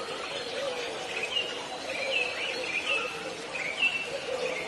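Aviary birds calling: a run of short, high chirps that starts about a second in, over a low wavering call that goes on underneath.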